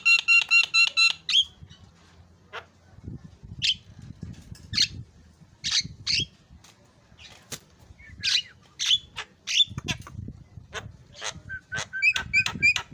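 Javan myna singing: a rapid run of repeated clear, pitched notes, about six a second, at the start and again near the end, with single harsh squawks and chattering calls in between.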